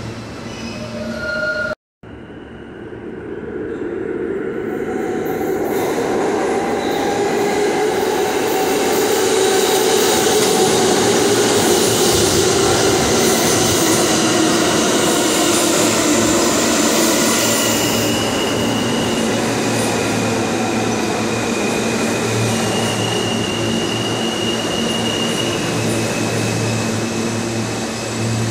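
New York City R160 subway train running into an underground station. The rumble of its wheels on the rails builds over several seconds and stays loud, with high squealing tones coming and going in the second half as it slows. It opens on a few seconds of another train's noise that cuts off abruptly.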